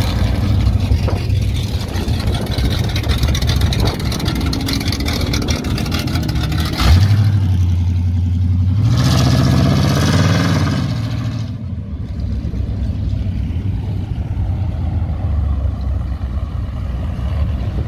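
Car engines running as cars drive out past, among them a classic muscle car. About seven seconds in a loud engine note starts abruptly, then revs up, rising in pitch for a couple of seconds before dropping away.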